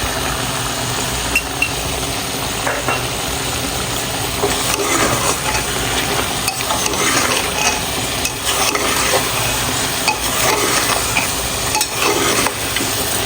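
Goat meat frying in its own fat with onion, chilli and freshly added ground spices, sizzling steadily while it is stirred, with scattered clinks and scrapes of the spoon against the pan.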